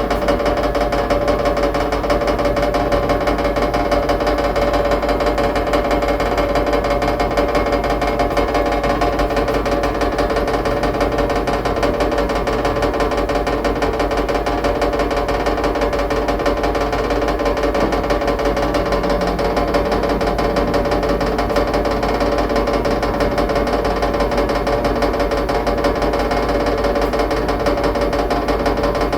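Washing machine in its final high-speed spin, loud: a steady whine with a fast rattling knock coming from the bottom of the machine.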